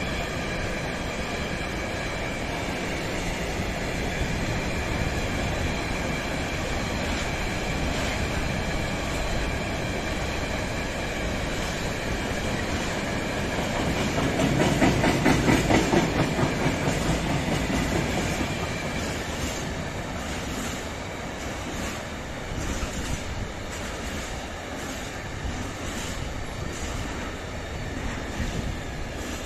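Freight wagons rolling past on steel wheels, clicking over rail joints with a thin steady wheel squeal. It swells to its loudest with quick clicks around the middle, and later the clicks come more spaced.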